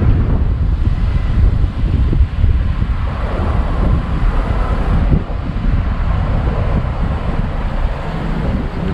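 Car rolling slowly across a wooden covered bridge's plank deck: a steady low rumble with wind noise buffeting the outside-mounted camera's microphone.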